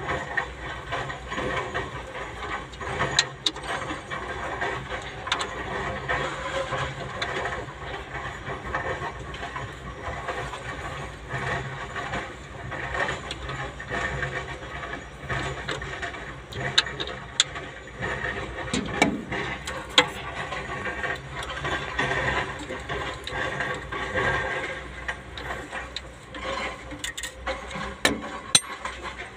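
Ratchet wrench clicking in short runs, with scattered sharp metal knocks, as the bolts of an excavator engine's timing cover are tightened, over a steady mechanical noise.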